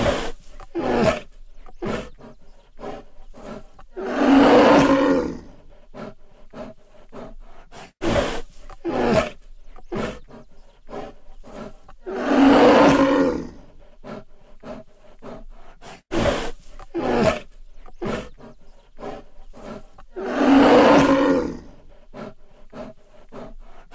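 Black bear sound effect: a run of short, sharp calls followed by one long loud roar of about a second and a half, the same sequence repeated three times about eight seconds apart.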